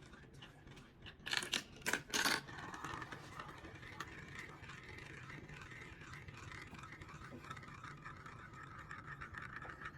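A marble rolling and rattling through the plastic tubes of a toy marble run: a few sharp clicks as it drops in, then a steady rolling rattle lasting several seconds.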